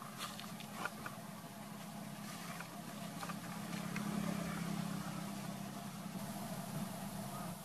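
A motor engine running steadily, a low hum that swells a little in the middle, with a few faint clicks near the start.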